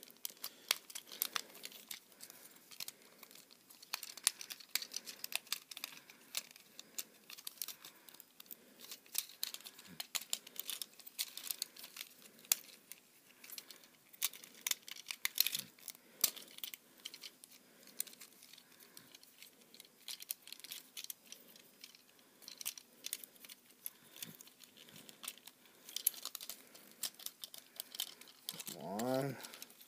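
Plastic Transformers deluxe-class action figure being transformed by hand: a long run of small irregular clicks, snaps and rattles as its plastic parts and joints are moved and clicked into place.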